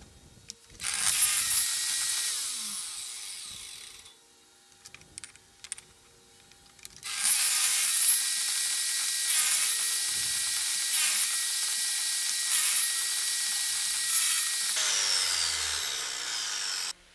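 Power saw blade cutting through plywood in two passes. A first cut lasts about three seconds. After a quiet gap with a few light clicks, a longer cut of about eight seconds eases off near the end and then stops abruptly.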